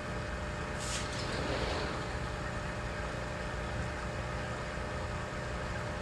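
Steady low rumble with a faint steady hum, and a brief hiss about a second in.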